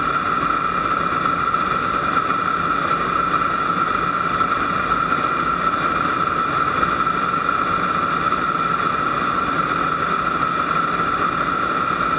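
Aero L-29 Delfín's Motorlet M-701 turbojet heard from inside the cockpit in flight: a steady high whine over an even rush of noise, unchanging throughout.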